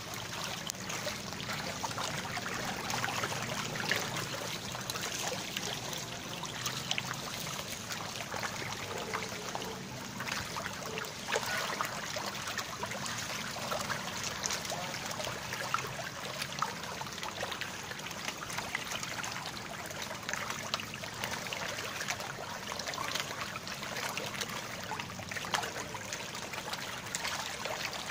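Steady watery splashing and trickling, dotted with many small slaps, from a dense crowd of orange-red pond fish churning at the surface.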